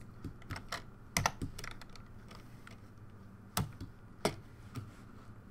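Computer keyboard keys being pressed in an irregular scatter of clicks, a few sharper strokes among lighter ones, over a faint steady hum.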